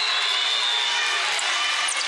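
Steady din of a large indoor volleyball hall: many voices and court noise blending into one echoing wash.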